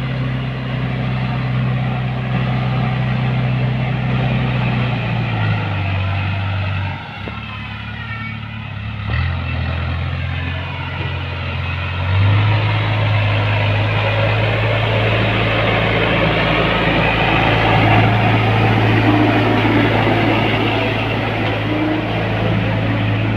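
Heavy diesel engine running steadily; its speed drops about 5 seconds in, stays low for several seconds, then picks up again around 12 seconds in and runs louder.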